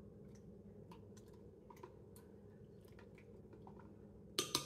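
Plastic spoon stirring warm water in a glass measuring cup, with faint scattered clicks against the glass and a quick run of louder clinks near the end.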